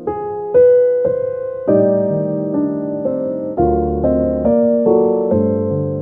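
Slow, soft piano music: chords struck about once a second, each left to ring and fade before the next.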